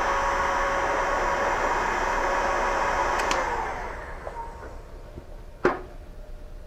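Heat gun blowing steadily while shrinking heat-shrink tubing over a wire connector. About three seconds in it clicks off and its fan winds down. A single sharp knock comes near the end.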